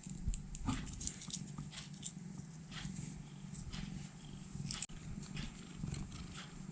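A cat purring steadily and low, with soft scattered rustles and small ticks of fingers picking cobwebs out of its fur.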